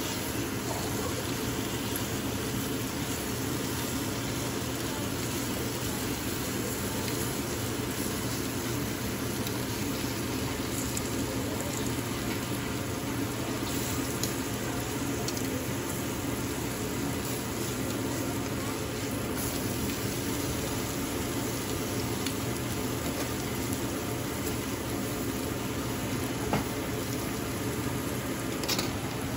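Thin steak slices sizzling steadily in a hot stainless steel pan, with a few light clicks of metal tongs turning the meat.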